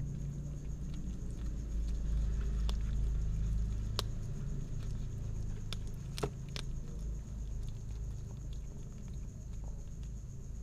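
An adult cat and a kitten chewing and licking fish up close: wet smacking and crunching with scattered sharp clicks, the loudest about six seconds in, over a steady low rumble.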